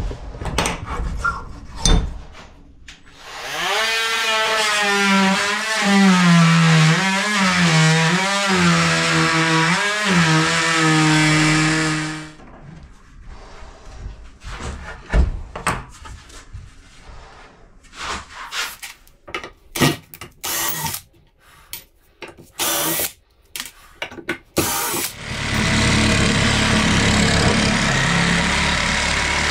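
Cordless power tool cutting into a fibre-cement floor sheet, its motor pitch wavering with the load, for about nine seconds. Then a stretch of knocks and scraping as the board is handled, and the tool cuts again near the end.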